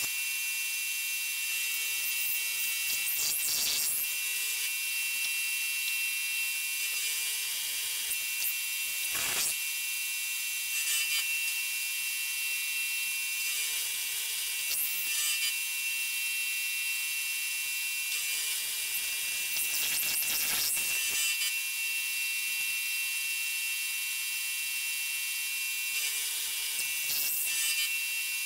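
Milling machine running, its end mill cutting a step into a metal block: a steady high-pitched whir, with a short louder rasp about every six seconds.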